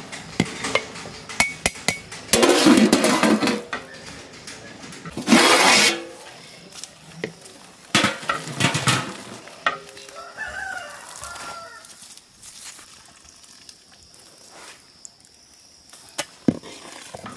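Basmati rice being stirred and scooped in a large aluminium pot of boiling water: a metal ladle clinks and scrapes against the pot, with two louder splashing rushes in the first six seconds. A rooster crows in the background about ten seconds in.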